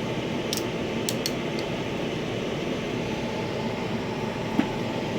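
Steady background hum in a small room, with a few light clicks about half a second to a second and a half in and one soft knock near the end, as hand tools are handled in a tool chest drawer.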